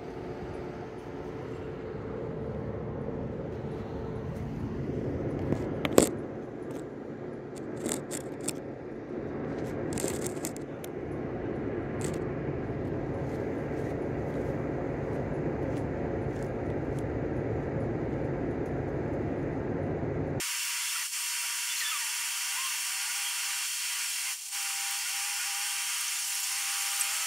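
Steady low outdoor rumble with scattered knocks and clatters, and one sharp bang about six seconds in. About twenty seconds in it cuts abruptly to a thin, high hiss with a faint steady tone and a short rising tone near the end.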